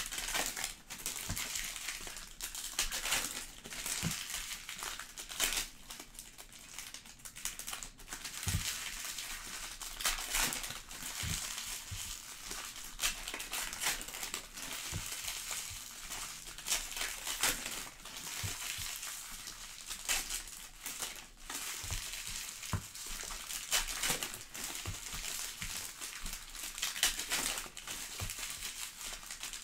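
Foil trading-card pack wrappers crinkling and tearing open in the hands, with many short sharp crackles and now and then a soft knock on the table.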